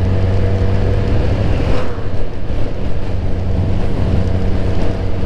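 Suzuki GSX-R1000 K7's inline-four engine running at a steady cruising speed, with wind rushing over the microphone.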